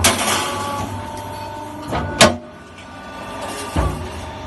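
Wire mesh fence bending machine pressing triangle bends into a welded wire mesh panel, its motor humming steadily. A burst of clattering noise as the stroke begins, a sharp metallic bang about two seconds in (the loudest sound), and a duller thump near the end.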